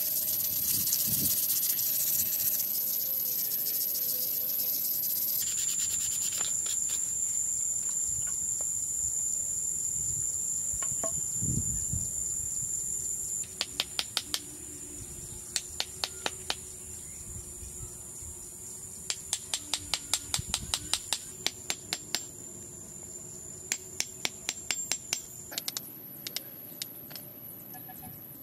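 Steady high-pitched drone of insects. In the first few seconds it sits under the scratch of sandpaper rubbing on wood. From about halfway there are several quick runs of sharp taps as a hand tool works the wood.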